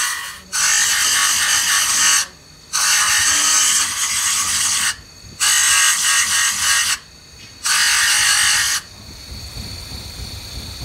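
Steel pinion gear being ground against an abrasive disc spinning on an electric motor's spindle: a harsh, high grinding rasp in four passes of one to two seconds each, with short breaks where the gear is lifted off. The grinding stops about nine seconds in.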